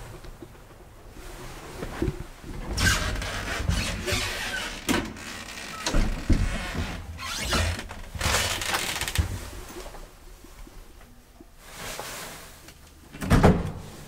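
Rattling and sliding noises in an old elevator car, coming in several bursts, then one loud clunk near the end.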